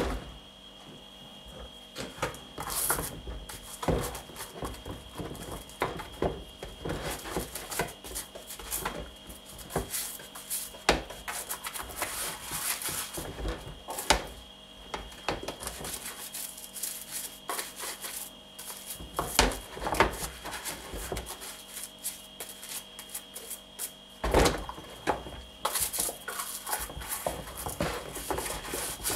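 A dish brush scrubbing patent leather high heels in a plastic bowl of soapy water: irregular scratchy brushing strokes and wet sloshing, with occasional sharp knocks.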